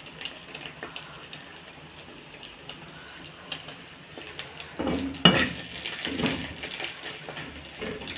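Steel spatula scraping and knocking against a frying pan as a slice of French toast is turned. Faint frying with small ticks comes first; the loud clatter starts about five seconds in, with its sharpest knock just after.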